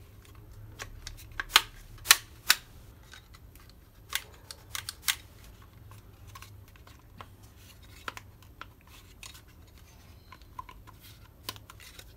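Sharp plastic clicks and knocks from the black plastic cover of a GM Vectra electric door lock (Kiekert) being pressed and snapped onto its housing by hand: several loud clicks in the first five seconds, then lighter scattered ticks as the part is handled.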